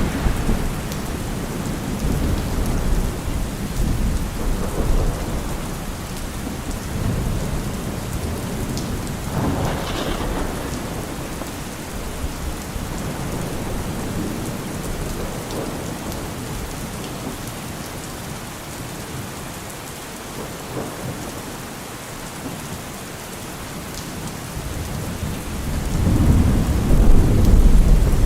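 Steady rain with rolling thunder: a low rumble dies away early, a sharper clap comes about ten seconds in, and the thunder swells again near the end.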